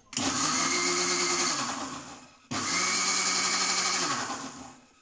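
Kitchen mixer grinder run in two pulses of about two seconds each, its motor starting sharply and winding down at the end of each, churning milk cream with chilled water to bring out butter.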